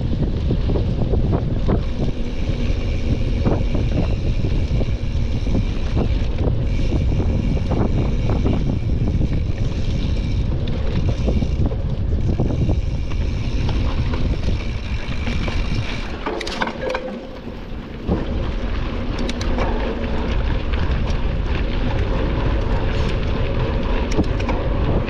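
Wind buffeting the microphone while a mountain bike is ridden at speed, with a steady low rumble and frequent sharp clicks and knocks. The wind noise drops briefly about two-thirds of the way through.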